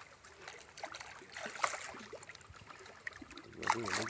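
Water splashing and sloshing as a hooked rohu thrashes at the surface, with louder splashes near the end.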